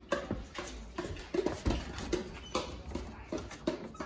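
A dog whining in short whimpers, among irregular light taps and clicks.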